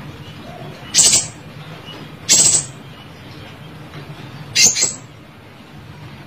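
Pentis raja, a flowerpecker, giving three short, sharp, high-pitched calls spaced one to two seconds apart.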